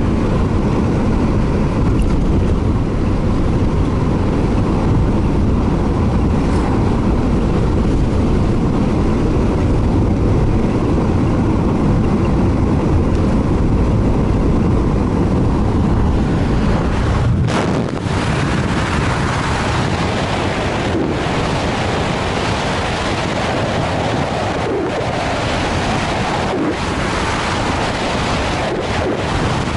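Road noise heard inside a moving car: a steady low rumble of engine and tyres on asphalt. A bit over halfway through it shifts to a brighter hiss of tyres and wind.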